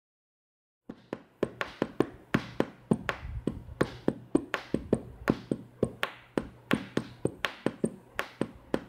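A quick, regular beat of sharp percussive taps or knocks, about three to four a second, starting about a second in, over a low steady hum.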